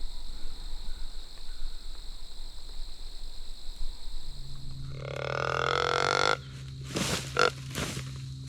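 A drawn-out deer-style grunt lasting about two seconds and cutting off suddenly, followed by a few short crunching steps or rustles near the end.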